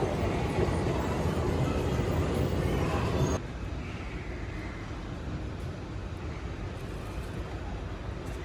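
Steady low rumbling background noise, with no voices or music. It drops abruptly to a quieter, duller hiss about three seconds in.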